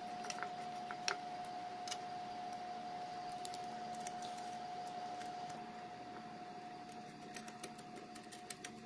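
Light metallic clicks and taps as the gear-change selector plate and gear-cluster parts of a Rajdoot motorcycle gearbox are handled and fitted into the crankcase by hand, more of them near the end, over a faint steady high hum.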